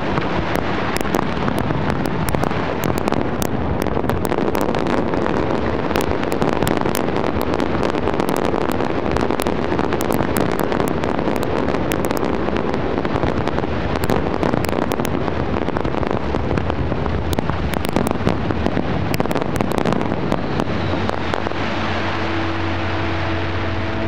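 Large-scale display fireworks going off in a dense, continuous barrage: a thick rumble of explosions with sharp cracks and crackles packed through it, loud and unbroken.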